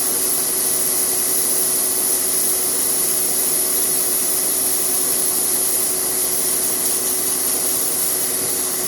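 Sandpaper held against a car's spinning brake disc, a steady rasping hiss over the even hum of the engine driving the wheel, as the worn disc face is sanded smooth.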